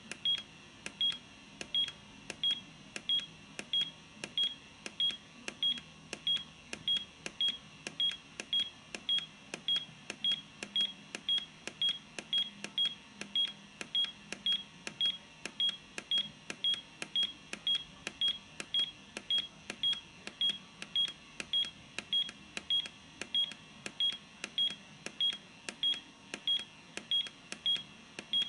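Walkera WK-2402 radio transmitter's buzzer giving a short, high key beep about every two-thirds of a second, one beep per button press, as a menu value is stepped up one percent at a time.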